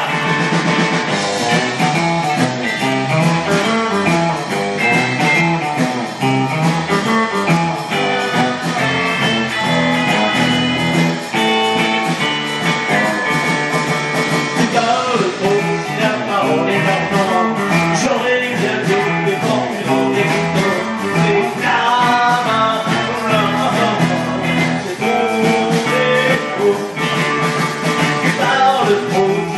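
Rock band playing live: electric guitars, bass and drums with a singer, loud and unbroken.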